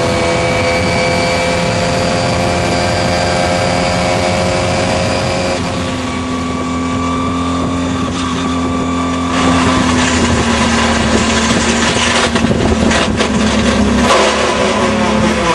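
Elva Formula Junior's engine heard onboard, running at a steady high pitch, then dropping to a lower steady note about six seconds in as the car slows for a corner. From about nine and a half seconds it turns louder and rougher, with irregular knocks over the engine note.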